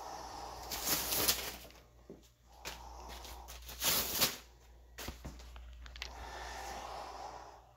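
Disposable plastic shoe covers rustling and crinkling as they are pulled off work boots, with the loudest rustles about a second in and again about four seconds in, and a few scuffs and clicks in between.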